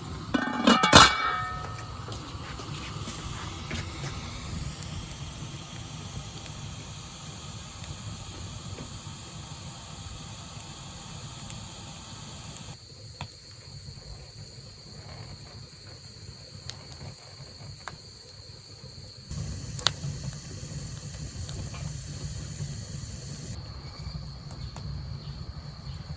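A metal pot clanks once about a second in. After that comes a steady hiss from the pot steaming over a wood fire, under a thin, high, unbroken cricket trill.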